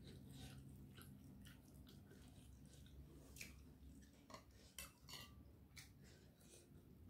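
Faint, scattered small clicks and soft tearing as a fried chicken thigh is pulled apart by hand over a glass plate, with a low steady hum underneath.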